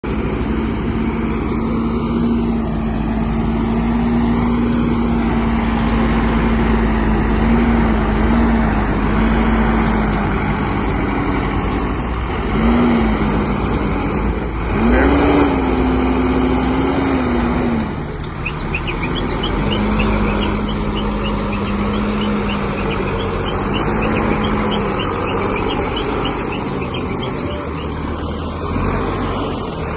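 ACE backhoe loader's diesel engine running steadily, revving up briefly about twelve seconds in and again for a few seconds around the middle.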